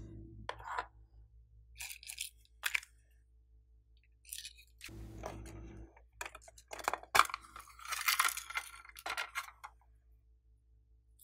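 A small plastic case handled and opened with scattered clicks and crinkles, then a dense run of crackling and clicking in the second half as loose plastic heart-shaped sequins are tipped out into a hand.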